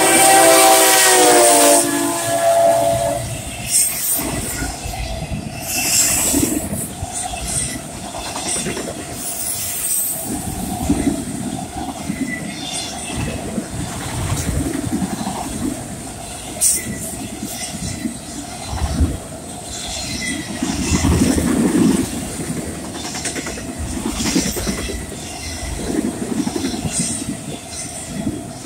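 Freight train horn sounding as the Union Pacific diesel locomotive passes, its chord dropping slightly in pitch and ending about three seconds in. Then a long string of autorack cars rolls by, with wheels clicking over rail joints, a rumbling clatter and a steady faint whine.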